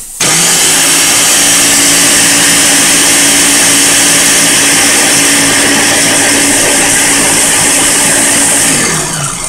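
Countertop blender motor running at a steady speed, blending juiced fruit with sea moss and coconut water. It switches on abruptly just after the start and is switched off near the end, the motor's pitch falling as it spins down.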